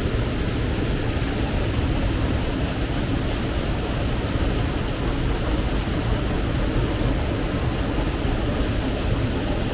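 Stream water rushing over cascades, a steady, unbroken rush.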